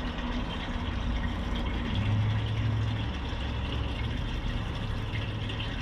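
Steady low motor hum aboard a small fishing boat, with water running under it; the hum grows stronger about two seconds in.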